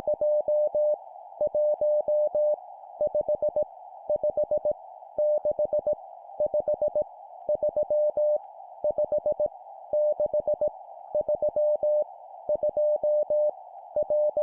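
Morse code sent at 17 words per minute: a single steady beep tone keyed into random numbers, each digit five dots and dashes, with short gaps between digits. A steady band of hiss runs under the tones.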